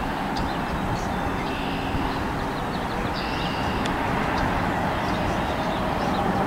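Steady low outdoor rumble, with a few faint short high chirps around the middle.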